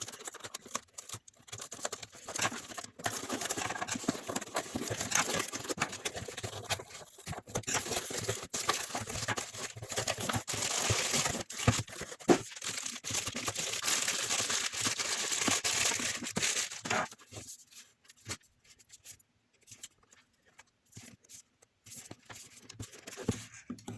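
Packaging being opened by hand: tearing and crinkling of plastic wrap and cardboard, dense rustling with sharp crackles, settling about two-thirds of the way through into quieter scattered clicks and handling.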